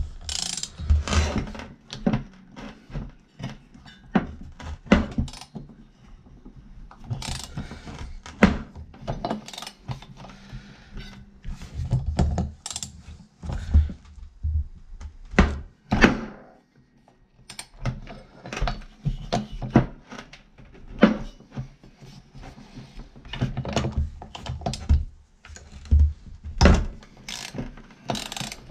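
Irregular metal clicks and knocks of a wrench working on the flywheel nut of a Poulan 3400 chainsaw, with a brief lull about two-thirds of the way through; the piston is held by a rope piston stop so the nut can be turned.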